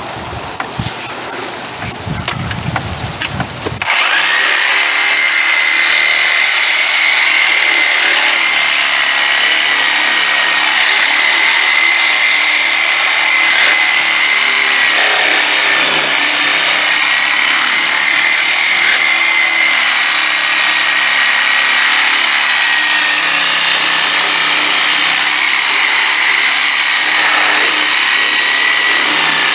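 A power tool cutting through the Jeep's metal body, running with a steady high whine that sets in about four seconds in.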